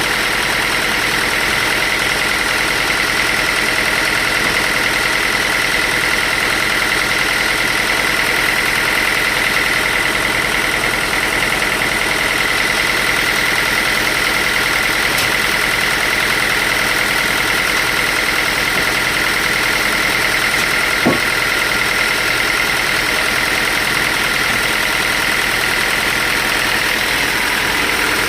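Sawmill machinery running steadily: a constant engine-like drone with a steady high whine over it. A single short knock about 21 seconds in.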